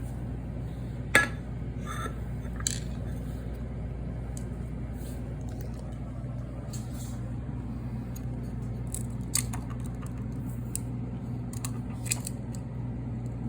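Scattered small metal clicks and clinks from handling the parts of a disassembled condenser fan motor, a sharp one about a second in, over a steady low hum.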